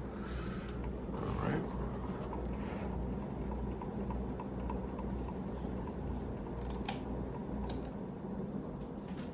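Moss HF-200 Heirloom ceiling fan's cast iron motor running with a steady hum, with a faint regular tick about three times a second that the owner puts down to a loose blade screw knocking. A few sharp clicks come in the second half.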